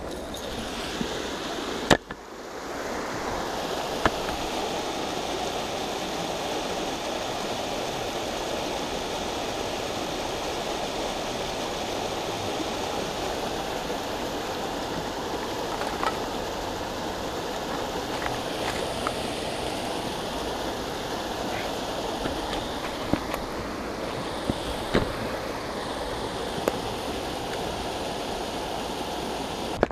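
Creek water rushing over shallow rapids, a steady hiss, with a few sharp clicks and knocks scattered through it.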